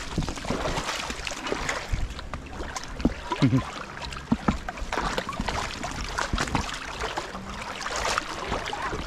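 Shallow seawater sloshing and splashing as a person wades and jabs a long metal pole at a crab, with several short splashes and a louder patch about three seconds in.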